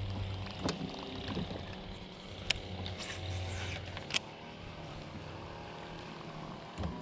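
Boat's electric trolling motor humming steadily. Over it, a baitcasting reel gives a few sharp clicks, with a brief high whirr about three seconds in as line pays off the spool on a cast.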